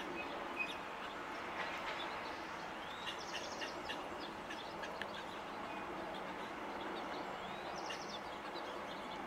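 Outdoor background hum with scattered chirps of small birds. Twice a songbird gives the same short phrase, a rising note running into a quick trill, about three seconds in and again about five seconds later.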